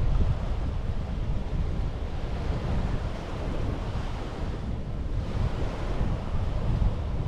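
Sea waves washing onto a beach in a steady rush, with wind buffeting the microphone as a low rumble.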